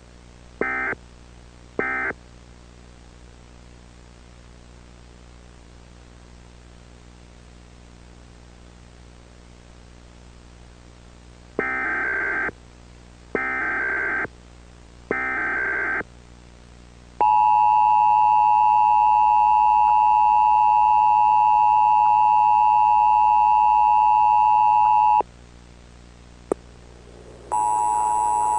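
Emergency Alert System tones: two short end-of-message data bursts near the start, then after about ten seconds of faint hiss, three longer SAME header data bursts. These are followed by the two-tone EAS attention signal, steady for about eight seconds. After a click, a denser, louder tone starts about a second before the end.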